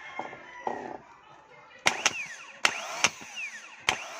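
Car starter motor being tested straight off the battery: about five sharp snaps as the current is switched on, each followed by a short whir that falls away as the motor spins briefly and coasts down. It spins, so current is now getting through the cleaned wiring.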